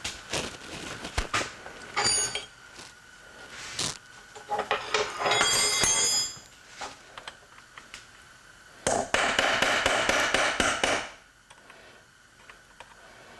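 Metal tools and engine parts clinking and knocking during the teardown of a Harley-Davidson Ironhead engine, with a few ringing metallic clinks and a clattering stretch around the middle. About nine seconds in comes a noisy burst lasting about two seconds.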